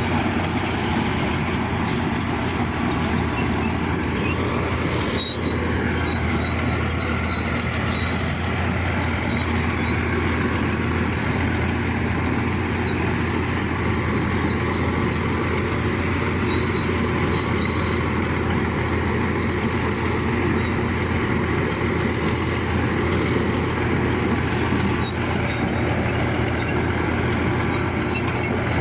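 Bulldozer's diesel engine running steadily, a constant low drone with no change in level.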